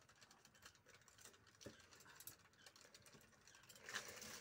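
Faint ticking and crackling as a wood fire catches in a clay stove, with a light knock of firewood sticks near the end.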